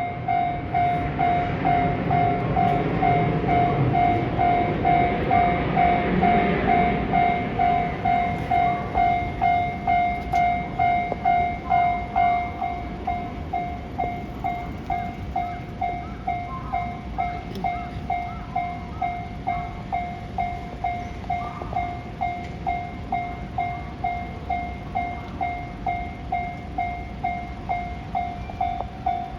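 Japanese level-crossing warning bell clanging at about two strokes a second throughout. For roughly the first twelve seconds it rings over the rumble of a passing JR West 681 series limited-express electric train, a three-car add-on set, and then it rings on with only a lighter background.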